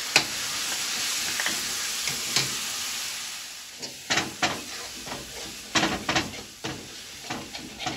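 Onion-tomato masala sizzling in a kadhai as dry spice powder goes in, the hiss fading over the first few seconds. From about halfway a steel spoon scrapes and clinks against the pan while the masala is stirred.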